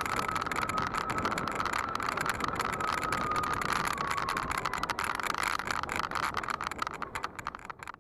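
S12X Vita Monster electric mobility scooter riding along, its motor giving a steady whine that wavers slightly in pitch, over rolling noise and light rattling. The sound fades out near the end.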